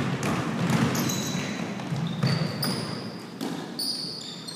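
A basketball bouncing irregularly on a hardwood gym floor amid players' running footsteps, with short high sneaker squeaks on the court in the second half.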